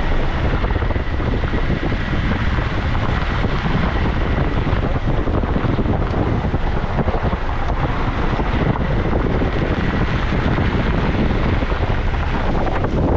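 Wind buffeting the microphone of a camera held out of a moving car's open window, over the car's steady running noise as it drives along a gravel lane.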